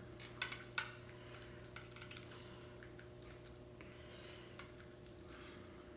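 A few faint clinks and scrapes of a metal spoon in a ceramic bowl of sticky rice, mostly in the first second, over a low steady hum.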